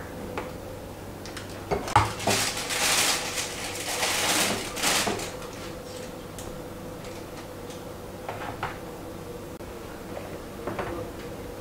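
A metal spoon knocking against a plastic bowl and scraping whipped cream into a plastic piping bag. A sharp knock comes about two seconds in, then a few seconds of scraping and rustling, and a few light taps near the end.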